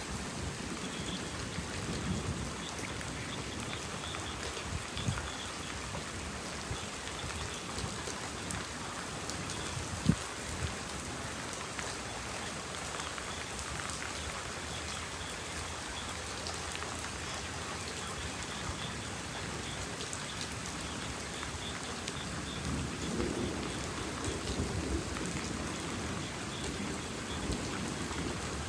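Heavy rain falling steadily during a thunderstorm, with a few sharp knocks, the loudest about ten seconds in, and a low rumble of thunder a little before the end.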